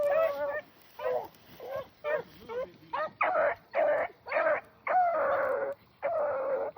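Rabbit-hunting dogs baying on a rabbit's trail: a run of short barks that come faster and longer in the second half, with two long drawn-out bawls near the end.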